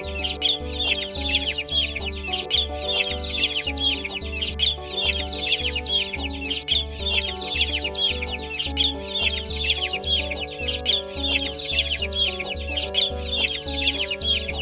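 Background music with a steady beat and held chords, over constant rapid high peeping of chicks.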